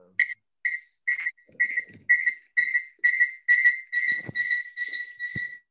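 A high-pitched tone repeating about two and a half times a second. Each note grows a little longer until they almost merge into one continuous tone near the end.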